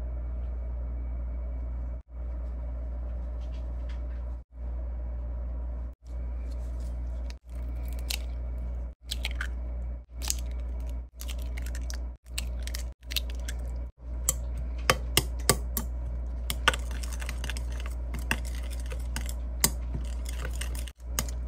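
Eggs cracked into a ceramic bowl, then sharp clicks of a utensil striking the bowl as eggs and crushed snack are stirred together, over a steady low hum. The sound drops out briefly every second or so where the audio has been cut.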